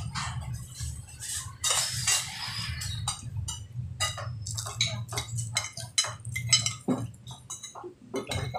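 Spoons and forks clinking and scraping against plates and plastic bowls as several people eat together, many quick irregular clicks over a steady low hum.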